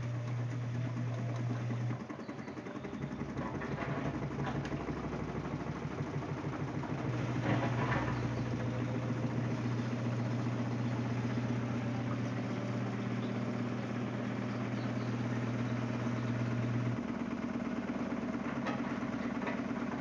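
LG Prime 8.5 kg front-loading washing machine spinning up in its spin cycle with a poorly balanced load: a steady motor hum with a rhythmic drum churn. The low hum drops out about two seconds in and returns at about seven seconds, then gives way near the end to a higher hum.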